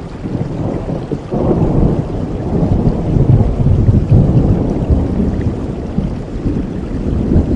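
Thunder rumbling, swelling about a second in and staying strong for several seconds, over falling rain.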